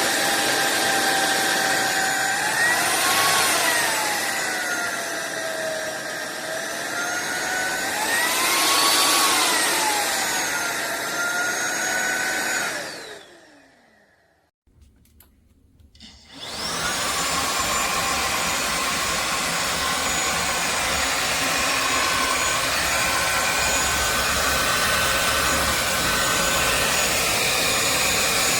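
SunSare X7A cordless stick vacuum running with a loud motor whine that rises and falls in pitch twice. About 13 seconds in it is switched off and the motor winds down with a falling pitch. After a couple of seconds of quiet it is switched back on and runs with a steady high whine.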